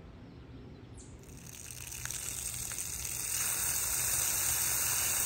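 Water gushing under pressure from an outdoor spigot on a post and spraying onto the ground: a rushing hiss that comes in about a second in, swells, and holds steady from about three seconds in.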